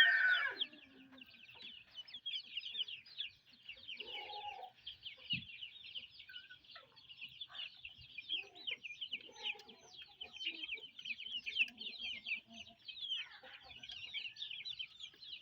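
A flock of young chickens peeping in a dense stream of rapid, high chirps, with occasional lower clucks. A loud crow cuts off right at the start.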